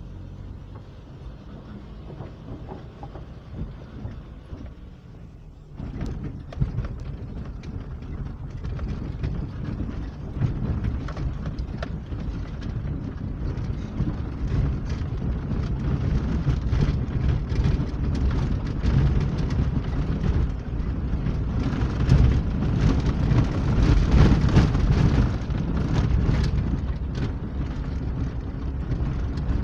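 Vehicle driving on a gravel road, heard from inside the cabin: steady engine and tyre rumble with the crackle of loose stones under the tyres. It is quieter for the first six seconds, then louder and rougher.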